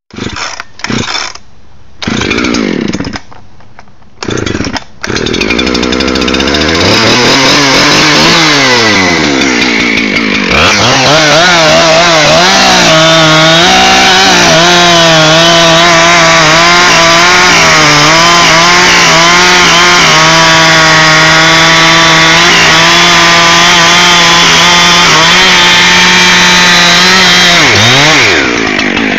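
Husqvarna 372XP 70.7 cc two-stroke chainsaw coming to life in a few short bursts and revving up. About ten seconds in, the engine note drops and holds steady under load for about seventeen seconds, as it does when the saw bucks through a log. Near the end the throttle is released and the engine falls back.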